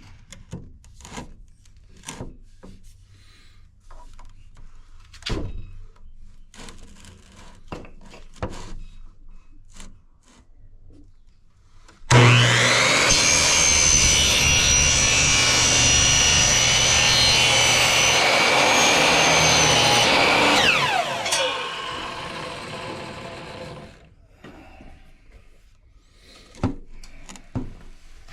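Electric miter saw cutting a piece of PVC pipe: the motor starts suddenly about twelve seconds in and runs loud and steady for about eight seconds through the cut, then the blade winds down with a falling whine. Before the saw starts, there are scattered knocks and clicks from handling the pipe.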